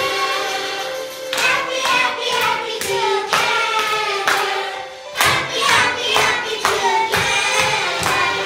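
Group of young children singing along to music, with a steady clap-like beat about twice a second starting about a second in.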